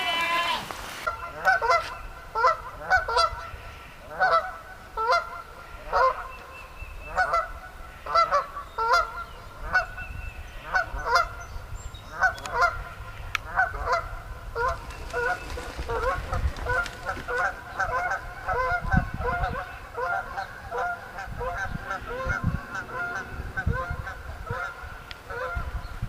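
Geese honking over and over, the calls coming once or twice a second and often overlapping.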